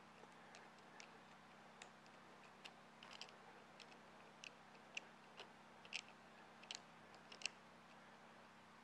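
Faint, irregular small clicks and ticks as a lifting strap and its buckle are handled and pulled tight.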